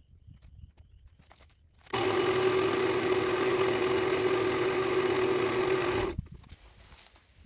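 An electric power-tool motor running steadily at one even pitch for about four seconds, starting and stopping abruptly, with faint taps and clicks before and after.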